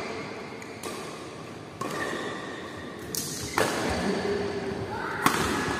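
Badminton rackets striking a shuttlecock in a doubles rally: several sharp, irregularly spaced hits that echo in a large indoor hall.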